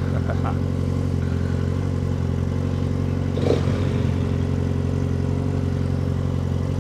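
Yamaha XJ6 motorcycle's 600 cc inline-four idling steadily at a standstill, with one brief clack about three and a half seconds in.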